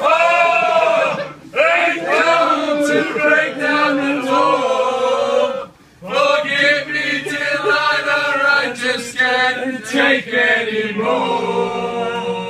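A group of men singing together without instruments, several voices at once. The song breaks off briefly twice, about a second and a half in and near the middle, then carries on.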